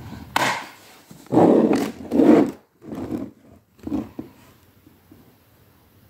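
Hands handling a Roomba robot vacuum's plastic body in its foam-lined packing case: a string of irregular plastic rubbing and knocking noises that die down after about four seconds.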